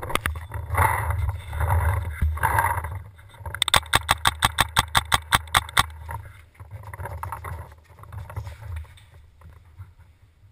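A paintball marker fires a rapid string of about a dozen shots, roughly six a second, for about two seconds. Before it come loud bumps and rustling as the player moves. After it there is quieter shuffling.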